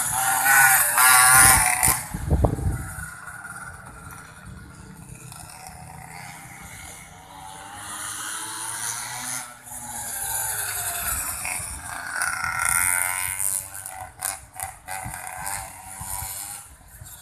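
Small mini motorbike engine buzzing at high revs, loud as the pocket bike passes close by for the first two seconds, then fainter as it runs round the track, rising in pitch again about twelve seconds in. A few sharp knocks sound near the end.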